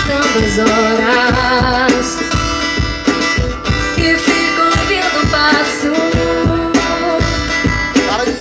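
Live band playing a song: a sung melody over guitar, with a steady drum beat.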